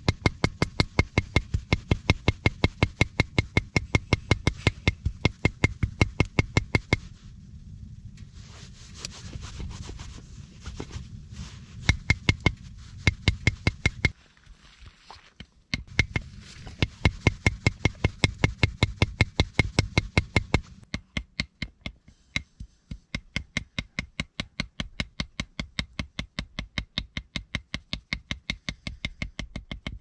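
Knife chopping raw meat on a wooden log block, mincing it with quick, even strokes of about four a second, broken by a few short pauses. In the last third the chops go on quieter and thinner.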